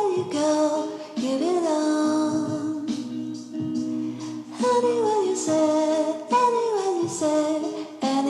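Background music: a song with a sung vocal line whose phrases glide downward in pitch over a steady accompaniment.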